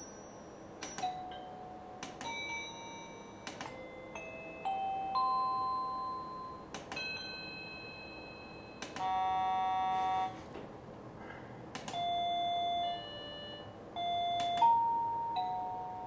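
Plug-in chime receiver of a SadoTech Crosspoint wireless doorbell playing a run of short electronic chime tunes, each different and each starting with a click. Several later ones are steady held tones about a second long.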